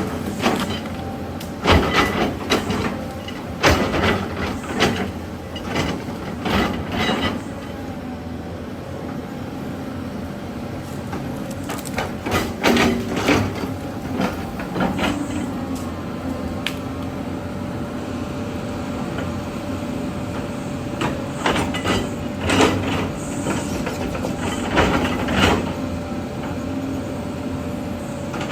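Heavy earthmoving machinery with its diesel engine running steadily, and clusters of clanks and cracks from rock and dirt being worked. These come and go, with a steadier stretch in the middle.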